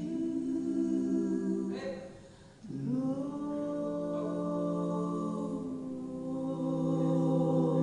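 Gospel trio of two women and a man singing in harmony, drawing out long held notes; the voices pause briefly a little past two seconds in, then swell into a long sustained chord.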